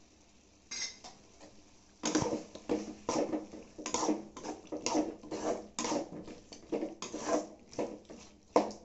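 A metal slotted spoon scraping and clattering against a metal kadai as chicken pieces and spice powders are stirred together, in irregular strokes about two a second starting about two seconds in.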